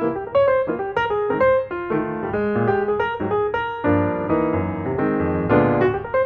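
Background piano music: a melody of separate notes over lower bass notes, becoming fuller chords about four seconds in.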